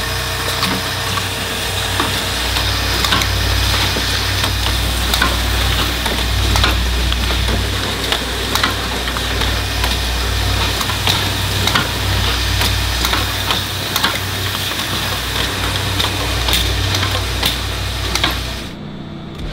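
Automated oil-filter assembly machines running: a steady low hum and hiss with frequent sharp metallic clicks and knocks from the stations handling metal filter base plates. Near the end it drops to a quieter hum.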